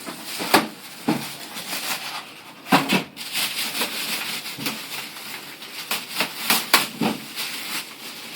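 Handling noise of the cardboard box and PC case: rubbing and shuffling with irregular knocks and taps.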